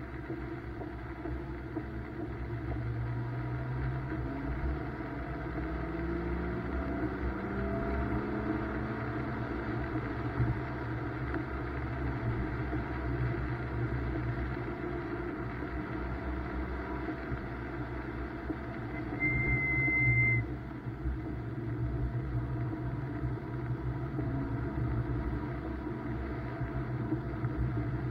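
BMW M2's turbocharged straight-six heard from inside the cabin, its pitch climbing under acceleration a few seconds in, over constant road noise. About two-thirds of the way in, a high steady squeal lasts about a second.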